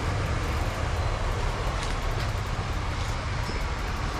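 Steady background noise in a busy shop: a constant low rumble under an even hiss, with no single sound standing out.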